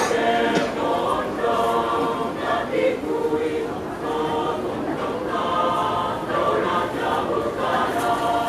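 Mixed choir of men and women singing together in full voice, phrase after phrase, with a short dip about four seconds in.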